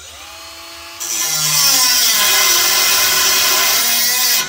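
Milwaukee 12-volt cordless 90-degree die grinder with a cut-off wheel spinning up with a rising whine, then from about a second in grinding loudly through 1-inch steel angle iron. The cutting stops suddenly just before the end, as the wheel's shank works loose from a collet that was not tightened enough.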